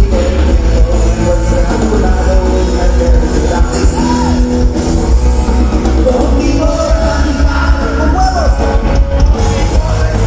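Live rock band playing loud through a PA, with steady heavy bass and singing.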